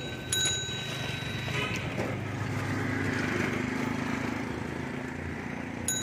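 Cycle-rickshaw bell rung once about half a second in and again near the end, over steady street traffic noise, with a motor vehicle's engine hum passing in the middle.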